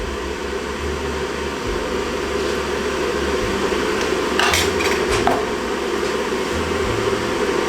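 Kitchenware clinking twice, about halfway through, over a steady hum in the room.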